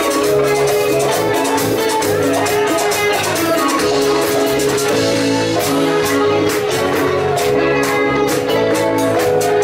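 Live bachata band playing: acoustic and electric guitars over bass and drums with a steady beat.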